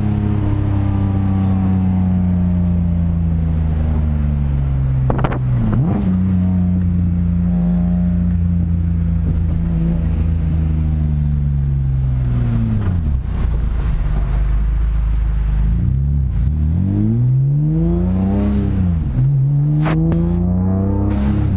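Car engine breathing through a BimmerWorld race exhaust, loud, on a test drive. The engine note falls away over the first few seconds, holds steady, then climbs and drops several times near the end as the revs rise and fall through gear changes. There is a sharp click about five seconds in.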